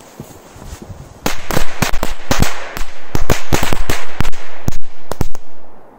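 A bundle of small firecrackers tied to a pine branch going off in a rapid, irregular string of sharp bangs lasting about four seconds, after about a second of faint crackling.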